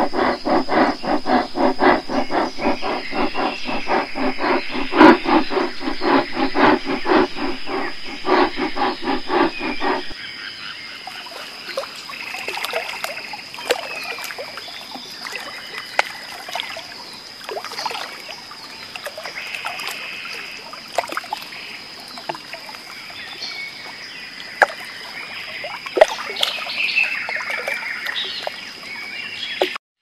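An animal calling in a fast, even pulsing series of about three to four pulses a second for the first ten seconds. It cuts to a quieter stretch of scattered short high calls and light clicks, with a faint steady high tone underneath.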